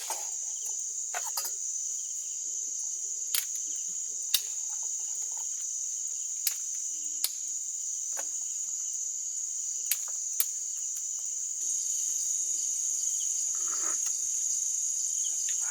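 Night insect chorus, crickets chirring in a steady high-pitched drone that grows a little louder about two-thirds of the way through, with a dozen scattered sharp clicks.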